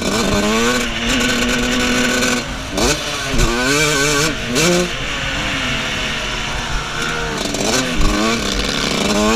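125cc two-stroke motocross bike engine under riding load, revving up and dropping back several times as the throttle is worked and gears change, with a steady held pitch for about two seconds near the start.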